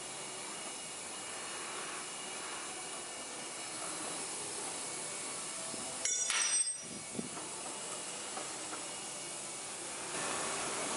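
Steady hiss of background noise, with a short, louder burst of noise about six seconds in.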